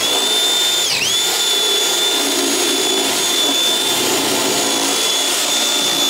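Cordless drill running at high speed, a steady high-pitched motor whine, enlarging a hole in a brake-booster part so the brake-switch piece will fit. The speed dips for a moment about a second in, then comes straight back up.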